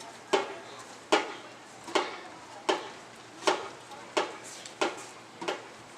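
Eight sharp taps or knocks at a steady pace, a little more than one a second, each with a brief ring.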